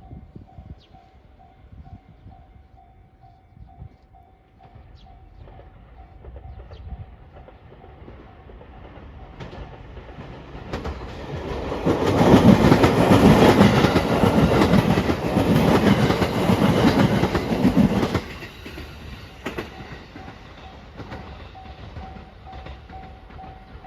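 A level-crossing warning bell rings in a steady repeating ding. Then a train passes over the crossing, building from about 10 seconds in, loudest from about 12 to 18 seconds, and cutting off sharply. The bell is heard again near the end.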